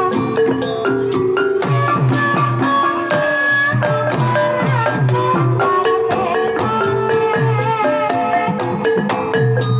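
Javanese Banyumasan gamelan playing a tayub piece: a kendang hand drum strikes low notes that slide down in pitch, over ringing bronze kettle gongs and mallet-struck metal keys in a steady rhythm, with a female sinden's wavering vocal line.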